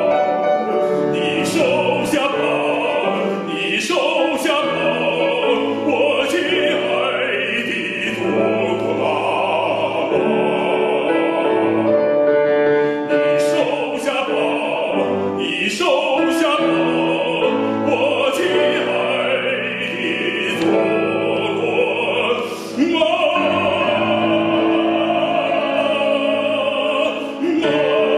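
A trained male operatic voice sings with wide vibrato, accompanied by a grand piano.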